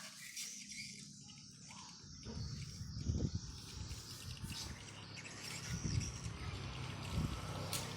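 Swiftlets chirping continuously at a high pitch, with a low rumble joining from about two seconds in.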